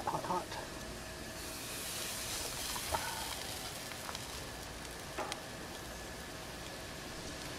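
Food sizzling steadily on a hot grill grate, with a few light metal clicks as tongs lift kebab skewers off the grate.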